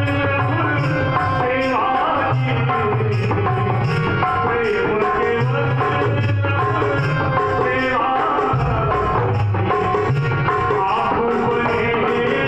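Harmonium and dholak playing a Hindi devotional bhajan: held reed notes from the harmonium over a steady dholak beat.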